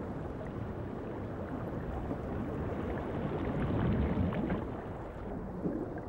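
Steady underwater ambience: a low rumble and hiss of moving water, swelling slightly around four seconds in.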